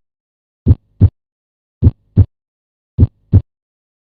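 Normal heart sounds, S1 and S2: three lub-dub pairs, each a short 'lub' followed about a third of a second later by a 'dub', the pairs a little over a second apart.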